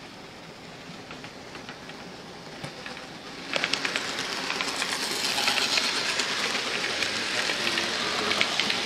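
Model train running on the layout's track, its wheels rattling and clicking over the rails. The clicking gets abruptly louder and denser about three and a half seconds in.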